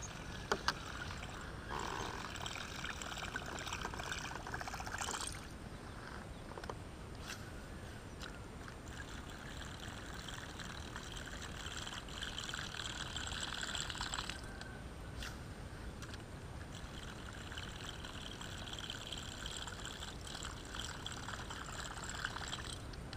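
Kayak paddling: water splashing and trickling off the paddle blades as it dips and lifts, in spells that come and go. A couple of sharp knocks about half a second in.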